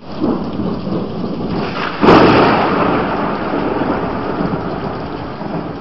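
Rain and thunder: steady rain with a loud crack of thunder about two seconds in that slowly dies away.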